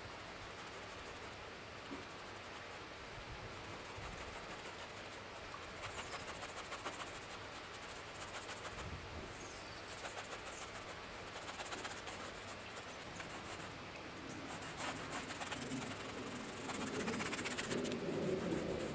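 A bristle brush scraping oil paint across stretched canvas in quick clusters of short strokes, over a steady outdoor hiss. A lower, louder sound builds near the end.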